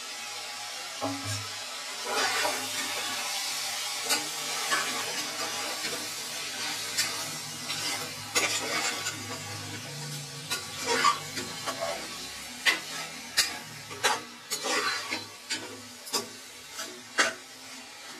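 A metal ladle stirs vegetables in masala in an aluminium pressure cooker over a steady sizzle of frying. In the second half the ladle scrapes and knocks against the pot more and more often.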